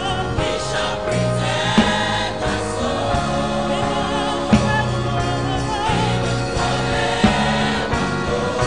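Gospel choir singing, with men's voices leading at the microphone over held bass notes. A sharp beat lands about every two and a half seconds.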